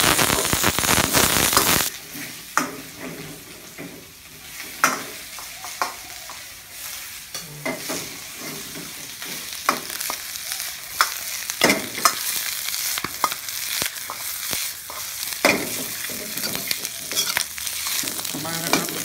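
Steel wok ladle stir-frying vegetables and meat in a hot iron wok, with oil sizzling. The sizzle is loud for about the first two seconds, then quieter, broken by frequent sharp clinks and scrapes of the ladle against the wok.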